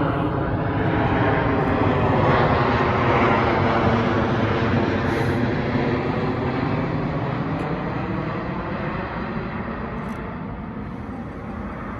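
DJI Mini 3 Pro drone's propellers running in flight, a steady hum of several tones at once. It slowly gets fainter over the second half.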